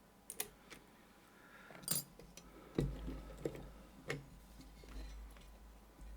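Scattered light metallic clicks and taps as a picked Metal Locking Systems 9J2x1 lock and its tools are handled before it is taken apart, about a dozen irregular ticks. A low hum comes in about three seconds in.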